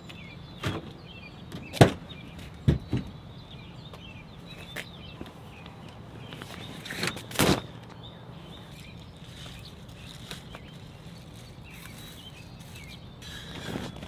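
A Ford F-150's tailgate is let down and gear is handled in the truck bed, giving a series of knocks and thumps. The loudest is a sharp knock about two seconds in, and there is another cluster around seven seconds in, all over a steady low hum.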